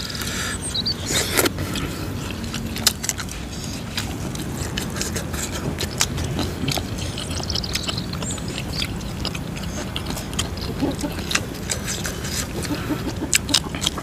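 Eating sounds: chewing and crunching with many small sharp clicks and smacks, scattered irregularly, over a steady low background.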